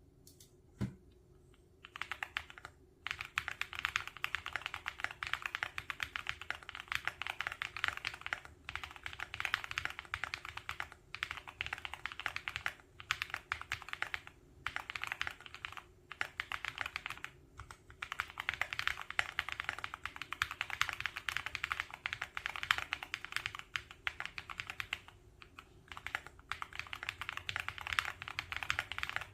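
Fast typing on a Qwertykeys QK75 mechanical keyboard with Kailh Ashen switches, an FR4 plate, doubleshot PBT keycaps and full case and plate foam. The keystrokes come in rapid runs broken by brief pauses, starting about two seconds in after a single knock.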